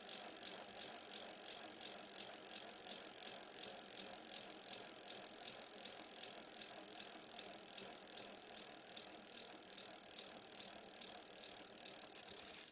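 A steady, fast ticking rattle over a bright hiss, starting suddenly and cutting off sharply.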